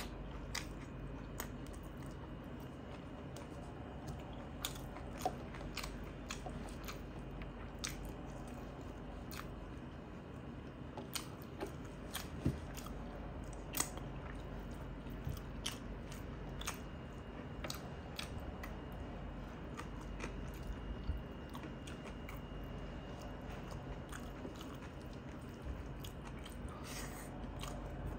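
Close-up chewing of a person eating rice and curry by hand, with many short, sharp mouth clicks scattered throughout.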